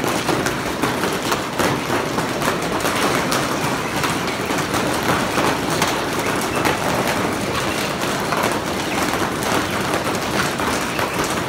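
Heavy rain and large hail hitting a greenhouse roof: a dense, steady patter full of sharp ticks.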